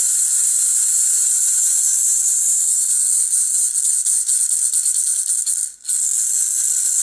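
A hand rattle shaken fast and without pause, a steady dense rattle; it breaks off for an instant a little before six seconds in, then carries on.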